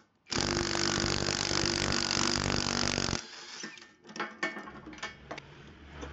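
Impact wrench hammering on a three-jaw gear puller's screw for about three seconds, drawing the bearing off an electric motor's rotor shaft. It stops suddenly, and the freed bearing and puller clatter down, followed by lighter metal clinks as the puller is handled.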